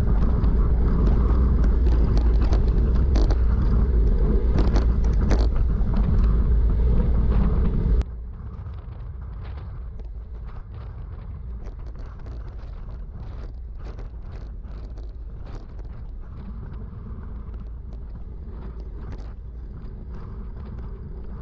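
Wind buffeting the microphone of a bike-mounted action camera at road-cycling speed, a loud low rumble with scattered clicks. About eight seconds in it cuts abruptly to a much quieter stretch of the same rolling noise with faint clicks.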